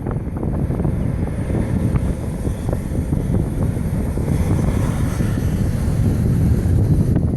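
Jet engines of a departing Boeing 747-400 running at takeoff thrust, a loud steady rumble, with gusty wind buffeting the microphone.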